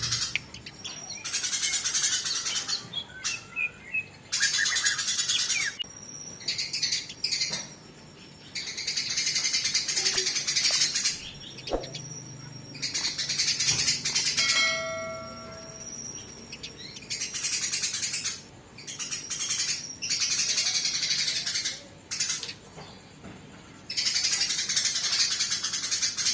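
Eurasian tree sparrows fighting, giving harsh, rapid chattering calls in repeated bursts of a second or two with short pauses between. About halfway through comes a brief clear note with several pitches stacked together.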